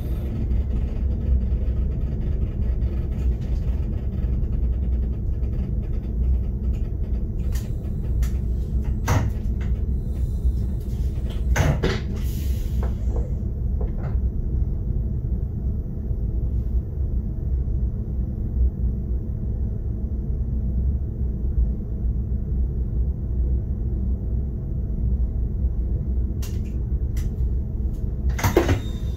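Steady low rumble in the driver's cab of an SBB RBDe 560 'Domino' electric railcar, with scattered sharp clicks and knocks and a brief hiss about twelve seconds in.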